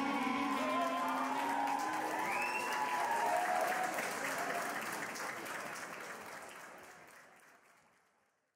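Audience applauding, with music carrying on underneath. Both fade away over the last few seconds into silence.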